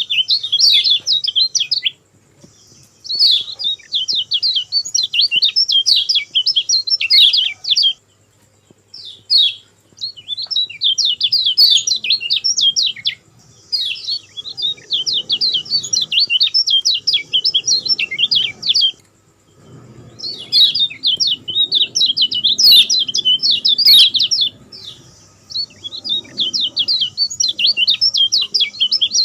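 Lemon-bellied white-eye (kecial kuning) singing its fast, high-pitched chattering 'grongsengan' song. It comes in repeated bouts a few seconds long with brief pauses between them.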